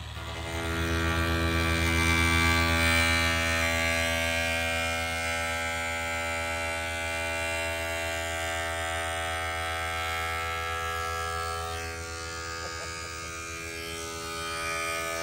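Cordless angle grinder with a cutoff wheel cutting a hole through a truck's sheet-metal hood: the motor spins up about half a second in and then runs with a steady whine, easing slightly near the end.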